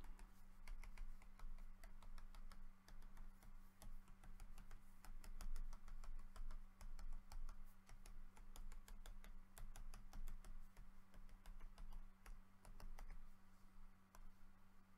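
Computer keyboard being typed on: quiet, irregular key clicks, several a second, over a steady low electrical hum.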